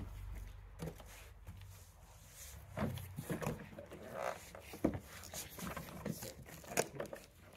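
Faint handling sounds: a few short knocks and rustles as a hand touches and shifts the hard plastic body of an HSP Boxer RC crawler in its cardboard box.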